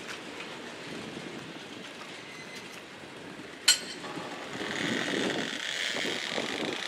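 Freight train cars rolling past on the rails with a steady wheel rumble. A single sharp metallic clank comes a little past halfway, and the wheel noise grows louder near the end.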